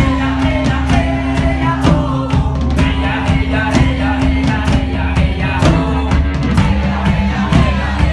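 Rock band playing live, with a male singer singing into a microphone over the band and regular drum hits.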